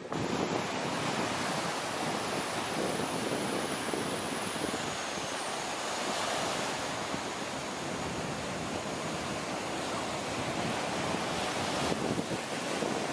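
Ocean surf breaking and washing up a sandy beach, a steady rushing noise, with wind on the microphone.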